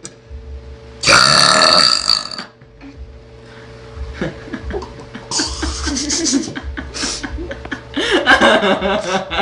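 A girl lets out one long, loud belch about a second in, lasting over a second. Softer, broken voice sounds follow, growing busier near the end.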